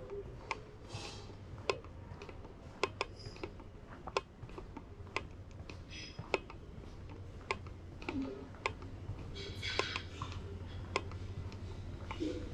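Footsteps clicking on a hard floor, sharp irregular taps about once or twice a second, over a steady low hum.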